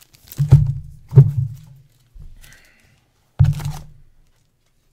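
Three loud, dull thumps against a desk from hands handling trading cards: two close together about half a second and a second in, and a third about three and a half seconds in.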